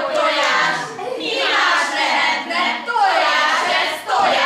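Several children's voices chanting together in short rhythmic phrases, roughly one a second, with the echo of a large hall.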